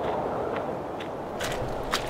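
Footsteps walking through grass and dead leaves, about two steps a second, over a steady background hiss.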